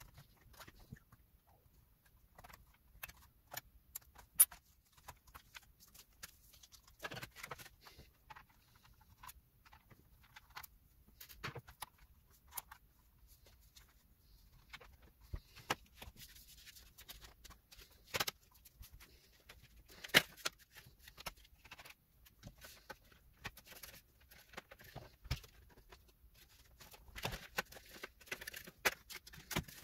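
Faint, irregular clicks, taps and rustles of a Dell Inspiron 15 7537 laptop being taken apart by hand: plastic and metal parts unclipped, lifted and set down, and a screwdriver handled, with a few sharper clicks among them.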